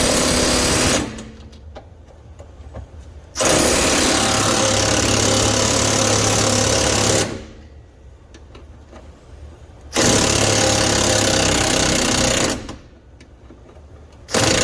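Snap-on impact wrench hammering in bursts of a few seconds on the rear shock's 18 mm lower mounting bolt, breaking it loose. A burst ends about a second in, a longer one runs from about three to seven seconds, another from about ten to twelve and a half, and a last one starts right at the end.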